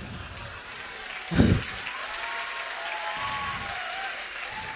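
Live audience applauding after a comedy punchline, with one loud burst about a second and a half in and a voice calling out over the clapping.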